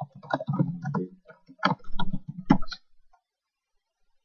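Computer keyboard typing: a quick run of keystrokes for about three seconds, then it stops.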